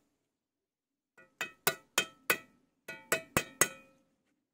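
A metal tool tapping calçada stone cubes down into a sand-cement bed: about nine sharp, ringing taps in two quick runs, the first starting about a second in.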